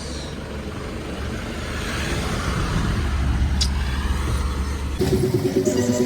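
Car engine and road noise heard from inside a moving vehicle: a steady low rumble with tyre hiss that swells in the middle. About five seconds in the sound changes abruptly to a fast, pulsing hum.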